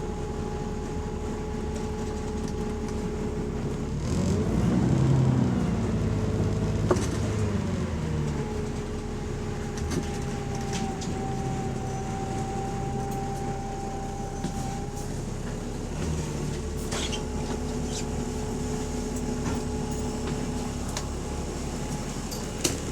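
Bus engine and drivetrain running on the move, heard from inside the bus, where the exhaust leak is muffled. About four seconds in the engine note rises and gets louder, then falls back to a steady drone, with another change in tone later on.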